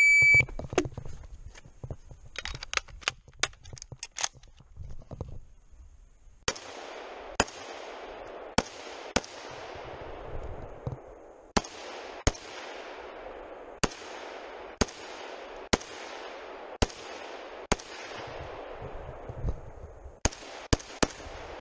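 A shot-timer beep, then a string of semi-automatic .308 Winchester rifle shots, sharp cracks spaced about a second apart, with a quick run of four shots near the end. A cluster of lighter, quicker cracks comes about three seconds in.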